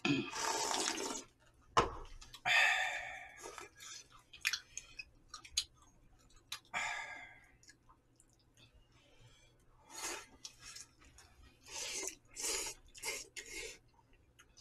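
Eating jjamppong noodle soup: a long slurp of broth from the bowl at the start, then repeated shorter slurps of noodles and soup with chewing and small mouth clicks between.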